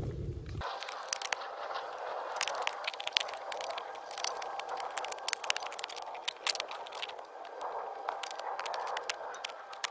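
Spade digging into stony ground: an irregular run of sharp knocks and scrapes as the blade strikes and prises at rocks and stones in the soil.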